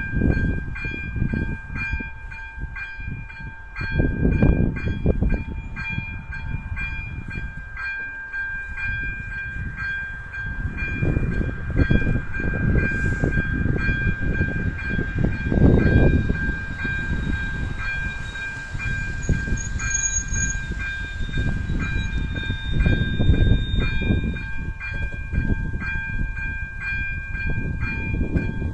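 Electronic level-crossing bell (AŽD electronic bell type 02) ringing with evenly repeated metallic dings: the warning that a train is approaching the crossing. An irregular low rumble swells and fades underneath.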